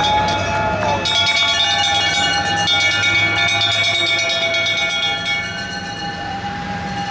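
Bells of WWII-era vintage fire engines ringing rapidly and continuously as the appliances drive past, over the low running of their engines. The ringing and rumble ease a little about five seconds in.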